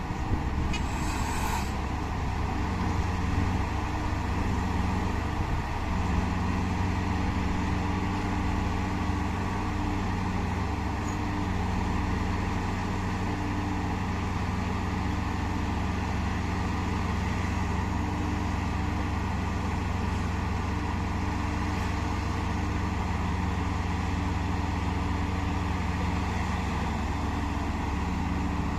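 Heavy diesel engines of a mining excavator and haul trucks running steadily in a continuous low drone. A brief hiss cuts in about a second in.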